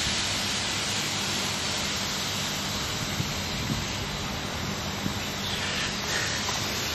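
Steady rushing hiss with a faint low hum beneath it.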